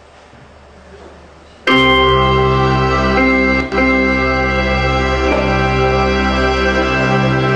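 Music with long held chords starts abruptly about a second and a half in, played over the room's speakers for a slideshow. Before it there is only low room noise.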